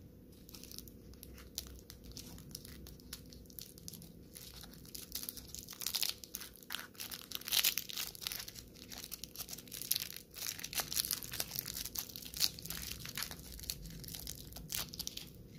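Foil wrapper of a Twix Mini bar crinkling and crackling as fingers untwist its ends and peel it open, busiest about halfway through.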